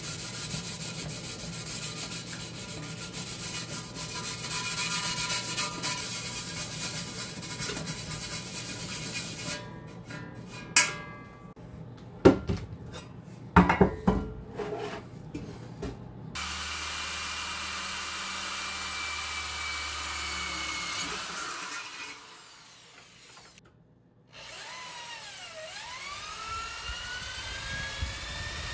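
Power tools working metal: a steady grinding run, several sharp clanks, a second steady tool run, then a motor whose pitch dips and rises again near the end.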